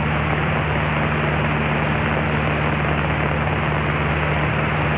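Cessna 152's four-cylinder Lycoming engine and propeller droning steadily at cruise, heard inside the cabin with the rush of air over the airframe.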